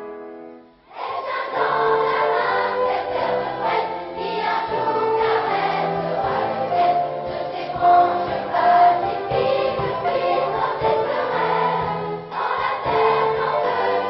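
Children's choir singing with an orchestra including violins; after a few fading plucked notes, the full choir and orchestra come in together about a second in and sing on with held notes.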